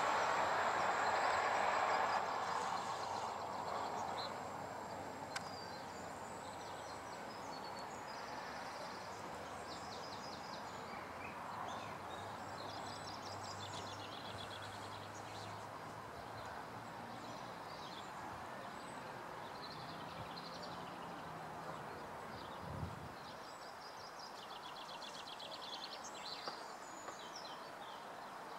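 A diesel-hauled passenger train running past and fading away over the first few seconds. After that comes a steady hum of distant traffic, with birds singing on and off.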